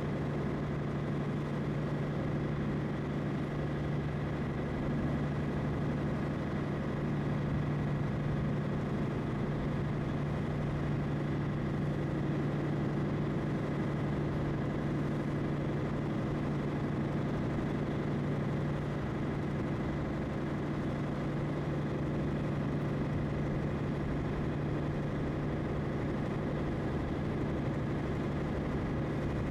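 Small ferry boat's engine running steadily, a constant low hum with no change in speed.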